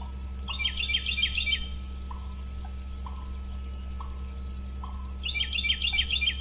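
Bald eagle giving its high chattering call: two bursts of rapid, piping notes, each about a second long and roughly four seconds apart, over a steady low hum.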